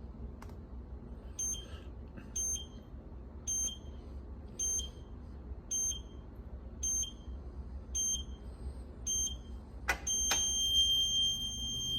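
Electronic safe lock keypad beeping as a code is entered, eight short high beeps about a second apart. Near the end a click and then a long steady tone: the lock has accepted the code but is held by bolt pressure, the bolt jammed against the mechanism.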